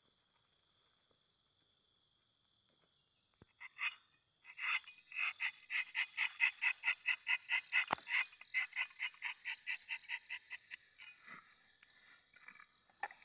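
Rubber-tapping knife shaving a thin strip of bark from a rubber tree: a rapid, even train of rasping scrapes, about five a second, starting about four seconds in and lasting some seven seconds. Night insects keep up a steady high drone throughout.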